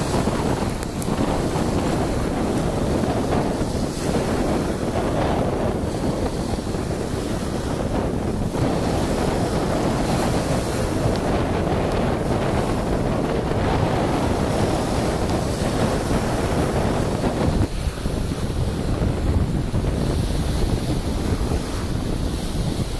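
Sea surf washing onto the beach, with wind buffeting the microphone in a steady low rumble.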